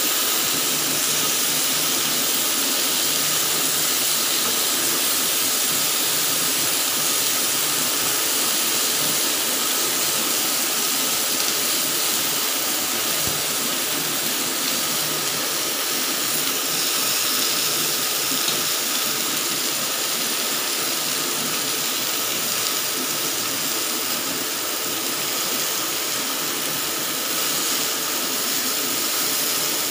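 Chicken pieces sizzling on a ridged grill pan over a portable butane stove burner, a steady hiss with no break.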